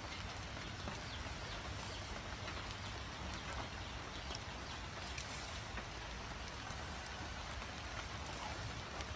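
Rain falling: an even hiss with scattered faint drop ticks.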